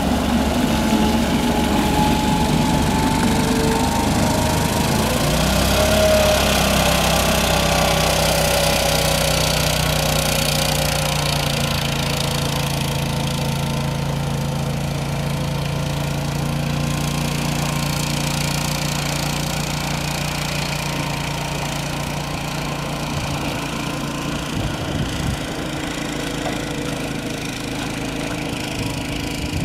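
Engine of an amphibious aluminium boat running steadily as it drives on its wheels out of the shallows and over a gravel beach. A higher whine slides down in pitch during the first several seconds.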